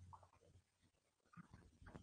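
Near silence: faint room tone with a few soft, brief sounds.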